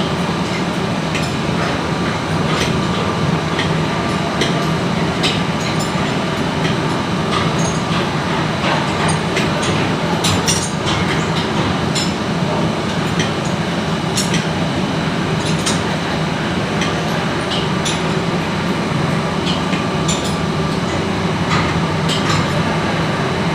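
Steady, loud machinery drone with a low hum, overlaid with scattered short metallic clinks and taps.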